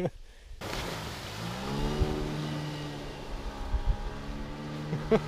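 Outboard motor on a small inflatable boat pulling away at speed: its pitch rises for about a second as it gathers speed, then it runs steady at high revs.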